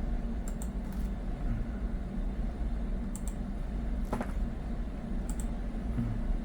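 A few light, sharp clicks scattered irregularly, with one fuller tap about four seconds in, over a steady low hum.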